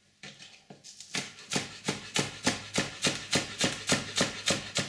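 Kitchen knife chopping a spring onion on a cutting board. A few light strokes, then from about a second in a steady run of quick, even chops, about three to four a second.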